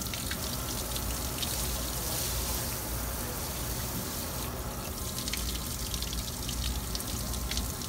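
Water running steadily with small splashes and drips as a dog is being bathed.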